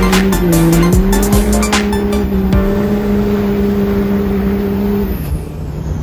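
A common-rail Cummins diesel in a second-gen Dodge Ram pulling under load, its engine note held steady, dipping briefly about half a second in and dropping lower about five seconds in as the throttle comes off.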